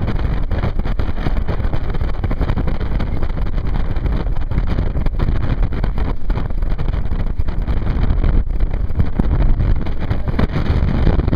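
Wind buffeting the microphone aboard a racing sailboat under sail, a loud, steady rumble heaviest in the low end, mixed with the rush of water along the hull.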